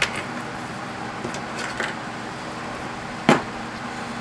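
A steady low hum in the background, with a small click at the start and one sharp knock about three seconds in.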